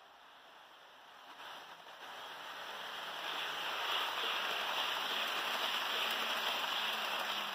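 HO scale model train, a Kato P42DC locomotive pushing its coaches, rolling along the track: a steady rushing rattle of small metal wheels on the rails, with a faint motor hum. It grows louder over the first few seconds as the train comes close and stays loud as the coaches pass.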